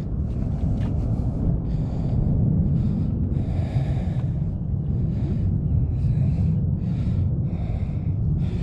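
Wind rumbling on the microphone, with short breathy hisses coming and going roughly once a second.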